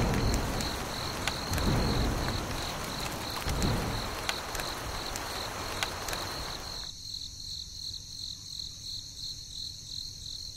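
Insects chirping in a steady, evenly pulsing high trill. Beneath it runs a hissing noise with a few low rumbles, which stops abruptly about seven seconds in and leaves the chirping alone.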